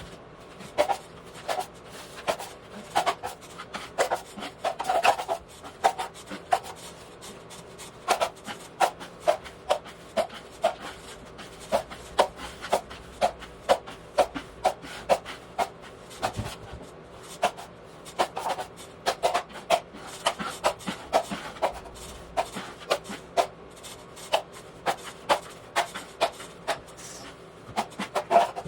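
Repeated short rubbing strokes by hand on a drywall patch of setting joint compound, about two to three a second, with brief pauses.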